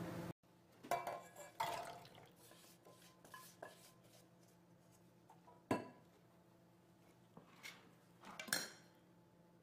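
Cubed potatoes and their salting liquid tipped from a stainless steel bowl into a stainless steel pot: a few sharp clinks and knocks of metal on metal, the loudest about halfway through and near the end.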